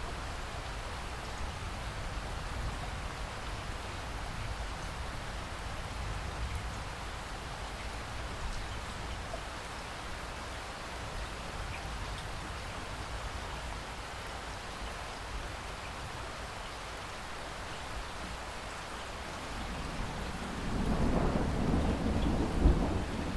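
Steady rain with a constant low rumble underneath; about twenty seconds in, a roll of distant thunder builds and grows louder.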